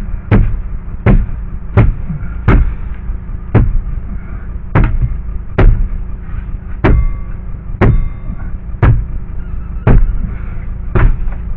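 Heavy blows against a screwed-in plywood piece in a boat, about one a second, a dozen in all, each a sharp knock with a short ring, as it is forced to break loose from its screws.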